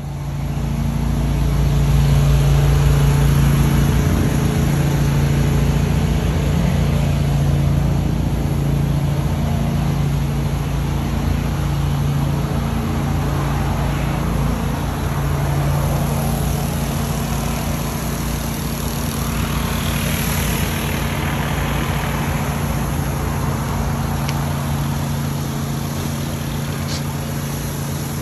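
Pressure washer engine running steadily, with the hiss of high-pressure water spray on concrete.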